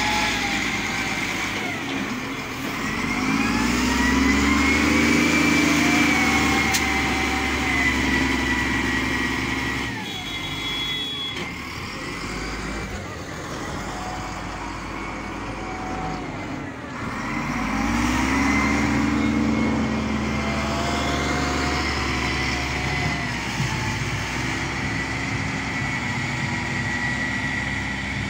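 Wheel loader's diesel engine working in avalanche snow, its revs swelling up and dropping back, twice, about two seconds in and again about two-thirds of the way through, with a steady high whine above the engine.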